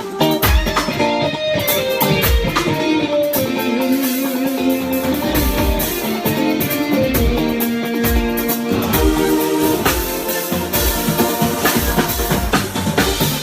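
Live band playing: electric guitar and bass over a drum kit with a steady kick-drum beat.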